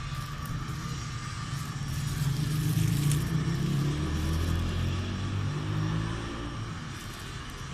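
A low engine rumble, like a motor vehicle passing nearby, swelling around the middle and dropping in pitch before easing off near the end.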